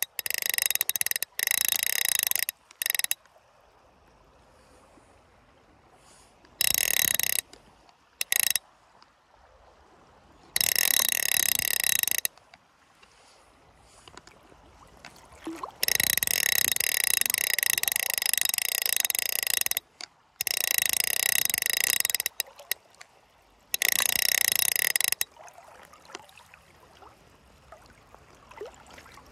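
Fly reel's click-and-pawl drag ratcheting loudly in about eight bursts, from a fraction of a second to about four seconds long, with quiet gaps between them: line running off or being wound onto the reel.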